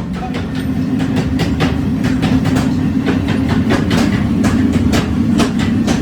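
Forging-shop machinery running with a steady low drone, overlaid by sharp metal-on-metal strikes about three a second.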